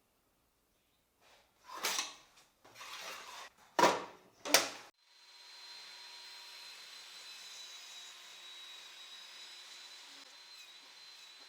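Four short rasping strokes of wood being worked, the last two the loudest, followed by a faint steady machine hum.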